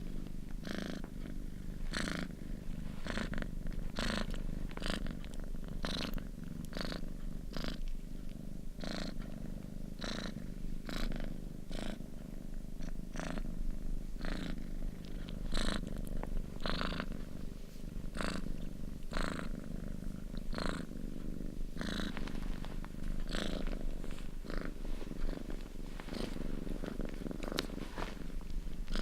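Domestic cat purring steadily: a low, continuous rumble with a rasp of higher noise that comes back regularly, about once every half second to a second.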